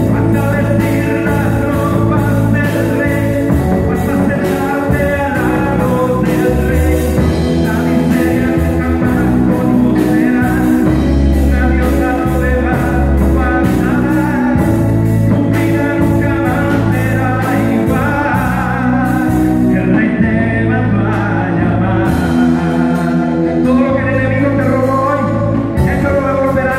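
Live gospel band: a male vocalist singing into an amplified microphone over a drum kit with cymbals and an electronic keyboard holding sustained bass chords that change every couple of seconds.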